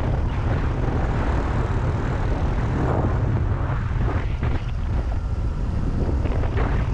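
Honda Cross Cub 110's small single-cylinder four-stroke engine running steadily while riding, with a continuous low rumble of engine and air noise.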